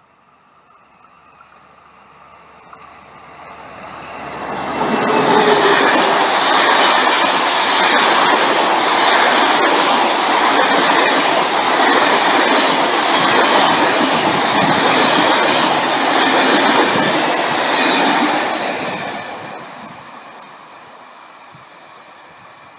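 Intercités passenger train of Corail coaches passing close by. It grows louder over the first few seconds, stays loud for about thirteen seconds while the coaches go past, then fades as it moves away.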